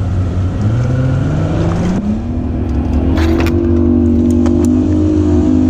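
An engine turning slowly, then revving up over about two seconds and holding a steady higher speed, with a few faint clicks near the middle.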